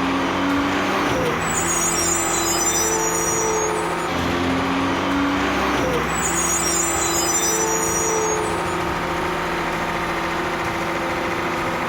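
Heavy construction machine's engine running steadily, its drone holding a few fixed tones, with a change in the sound that repeats about every five seconds.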